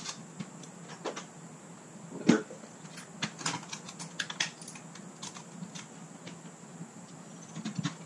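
Scattered clicks and knocks of a cordless drill and drill bits being handled while a bit is swapped, with one louder knock about two seconds in and a run of small clicks a second later, over a faint steady hum.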